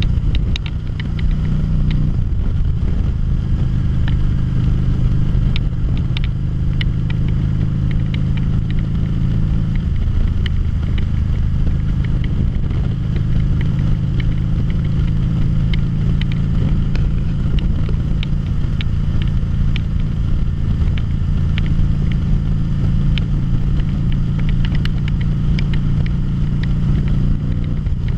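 A 2013 Harley-Davidson V-Rod Muscle's liquid-cooled Revolution V-twin engine running steadily at cruising speed, heard from the rider's seat. The engine note dips briefly about a second in.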